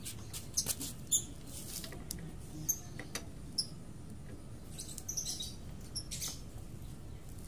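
Small birds chirping in short, repeated high notes, mixed with scattered sharp metallic clicks from a box spanner working the shock's lower mounting bolt.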